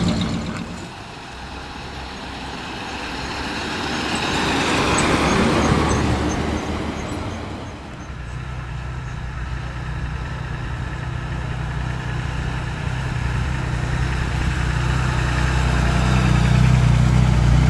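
Classic cars rolling slowly past. One passes with a swelling, then fading rush of engine and tyre noise about four to six seconds in. From about eight seconds in, a low engine note grows steadily louder as a classic Aston Martin coupe approaches at low speed.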